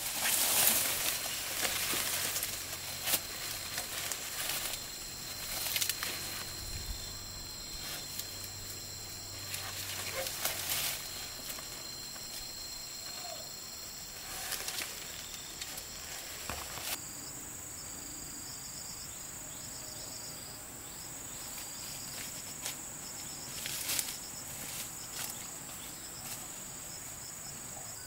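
Insects trilling steadily in high, unbroken tones. Short bursts of scratchy noise come and go over them, and the insect tones change about two-thirds of the way in.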